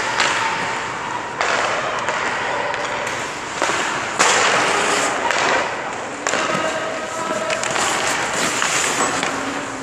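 Hockey skate blades scraping across rink ice in several long scrapes with sudden starts, the loudest beginning about four seconds in, along with light knocks of sticks and pucks on the ice.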